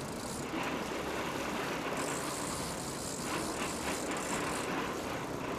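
Steady engine and wind noise aboard a sport-fishing boat, with a light rattling as the big-game trolling reel is worked.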